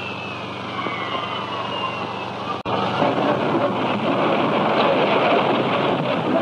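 A wavering, gliding tone fades away over the first couple of seconds and breaks off at a sudden cut. A noisy rush of an early-1930s car driving follows, growing louder as a car passes close by near the end.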